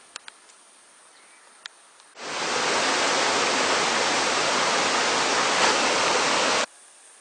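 Waterfall pouring: a loud, steady rush of falling water that starts suddenly about two seconds in and cuts off abruptly near the end. Before it there is faint quiet with a few small clicks.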